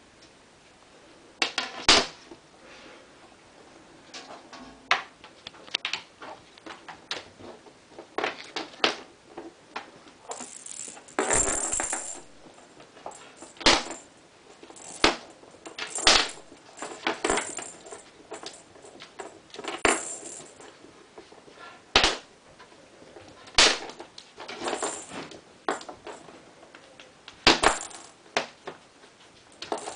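Kittens playing with a wand toy on a hardwood floor: irregular clatters and sharp knocks as the toy and their paws strike the floor, with a longer rattling scuffle about eleven seconds in.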